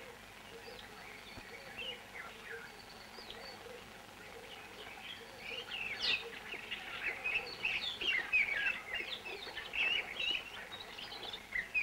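Several birds chirping and whistling, a forest bird chorus of short quick notes that is sparse at first and grows busier and louder about halfway through.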